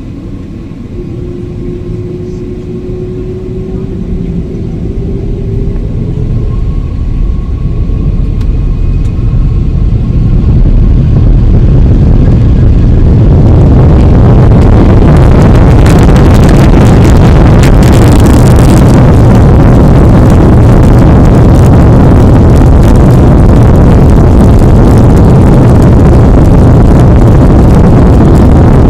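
Airliner's jet engines spooling up to takeoff thrust: a faint rising whine under a roar that builds for about twelve seconds, then a steady, very loud roar and rumble as the takeoff run goes on.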